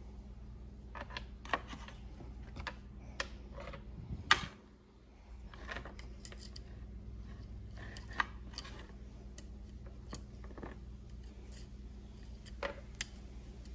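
Loose steel saw chain clicking and rattling in the hands as it is worked around a chainsaw guide bar, with scattered clicks of plastic and metal parts and one sharp knock about four seconds in. A steady low hum runs underneath.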